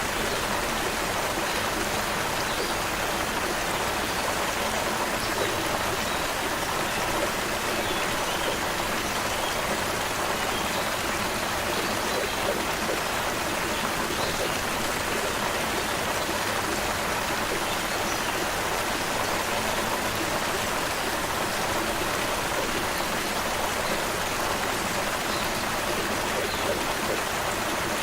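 Shallow creek water running and babbling steadily, an even rushing wash with no change in level.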